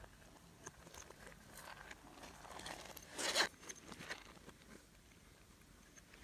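Slime being mixed and worked by hand: scattered small sticky clicks and crackles, with one louder crackling burst about three seconds in.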